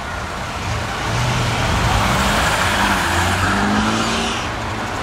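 Classic cars driving slowly past at close range: the engine of a Mercedes-Benz Pagoda roadster, then a Volvo PV humpback whose engine grows louder and rises a little in pitch as it pulls up close.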